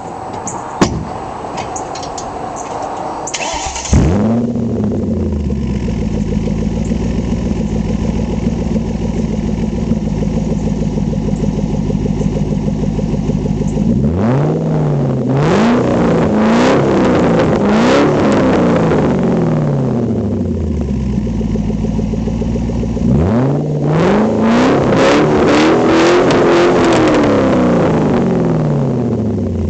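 1998 Panoz AIV Roadster's Ford 4.6-litre DOHC V8 exhaust, heard close up: the starter cranks and the engine catches about four seconds in, flares up and settles to a steady idle. It is then revved in two rounds of quick blips, one around the middle and another a few seconds later, falling back toward idle near the end.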